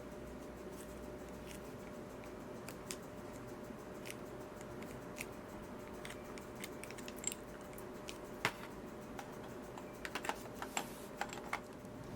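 Scattered light clicks and taps of tools and glass on the workbench during stained glass soldering, bunching together near the end, over a steady low hum.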